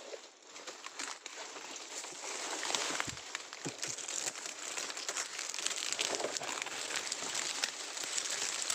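Dry bamboo leaves and brush rustling and crackling as someone pushes through the undergrowth, a dense run of small crackles that grows louder about two seconds in, with a couple of low thuds in the middle.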